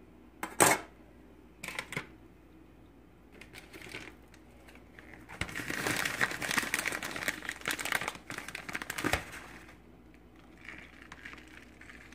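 A couple of sharp knocks, then a few seconds of crinkling and rustling as shredded Mexican-blend cheese is handled in its bag and sprinkled over tortilla chips, with lighter rustling near the end.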